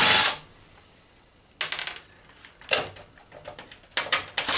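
Cordless drill-driver backing out motherboard screws in a computer case: a short run of the driver ending just after the start, two brief bursts at about one and a half and two and a half seconds in, and a quick cluster of clicks from the screw and tool near the end.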